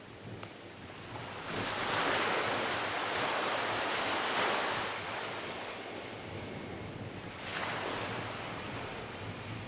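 Small ocean waves breaking and washing up a sandy beach: a long surge of surf builds a little over a second in and fades after about five seconds, and a second wash comes in near the end.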